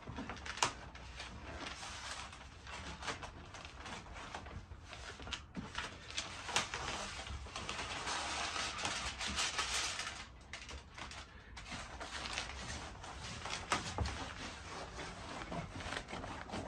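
Wide aluminium foil tape being unrolled, its paper backing peeled away, and the foil pressed and smoothed down by hand along an insulation board seam. It makes a steady crinkling and rustling with scattered sharp clicks, busiest a little past the middle.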